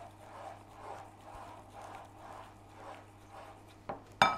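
Silicone spatula stirring melted chocolate in a glass bowl: soft, even scraping strokes, about two a second. Near the end comes one short, sharp clink with a brief ring.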